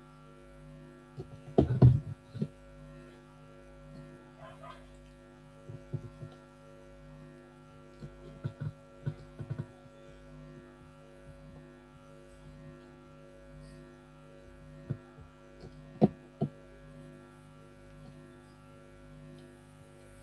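Steady electrical hum made of several constant pitches, with scattered short clicks and knocks; the loudest cluster comes about two seconds in, with more around the middle and near the end.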